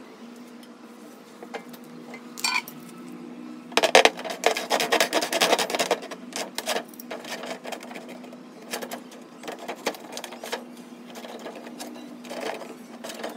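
Thin plastic sheet being handled: a marker scratching across it, the sheet crackling and rubbing under a hand with a louder stretch a few seconds in, and scissors snipping through it near the end, over a steady low hum.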